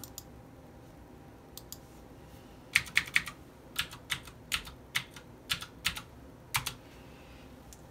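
Computer keyboard keys being pressed while a Windows login password is typed: two light taps about one and a half seconds in, then a quick, uneven run of about fifteen key presses ending with a single press shortly before the end.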